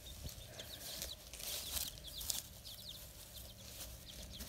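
Bantam chicks peeping: many short, high, falling peeps, faint and scattered.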